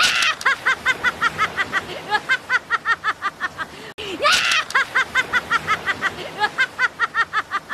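Anime character Monkey D. Luffy laughing: a cartoon voice's high-pitched, rapid run of 'ha-ha-ha' at about five syllables a second. It plays twice, the second run starting with a shout about four seconds in.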